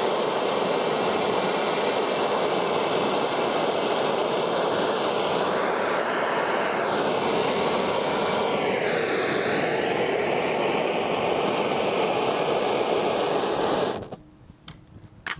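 Handheld gas-canister blowtorch flame burning with a steady hiss, its tone wavering slightly midway. It cuts off suddenly near the end, followed by a couple of sharp clicks.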